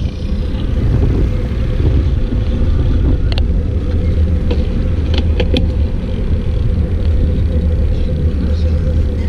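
Steady low rumble of wind and road noise on a microphone riding along with a moving bicycle, with a few brief sharp clicks around the middle.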